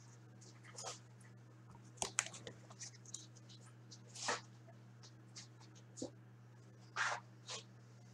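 Scattered soft clicks, taps and rustles from someone handling things at a desk, over a steady low hum.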